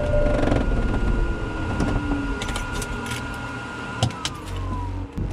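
Cirrus SR22's six-cylinder piston engine being shut down: the engine and propeller run down over about four seconds and stop with a single clunk. After the clunk a steady high whine falls in pitch.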